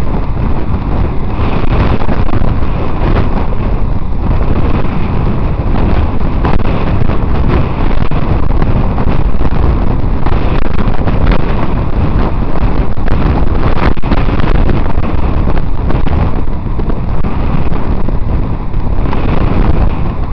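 Steady, loud wind rush on the microphone of a camera carried on a moving bicycle, with road noise underneath.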